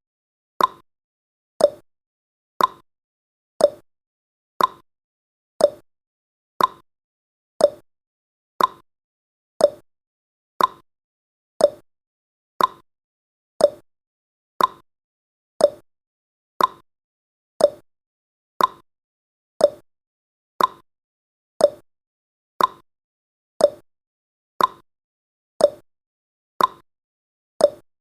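Countdown timer's clock-tick sound effect: a sharp tick about once a second, alternating slightly higher and lower in pitch like a tick-tock.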